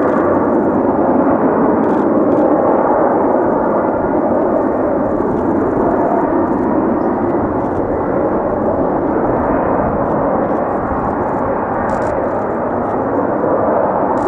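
F-35B's jet engine and lift fan running in a hover: a loud, steady noise with no words over it.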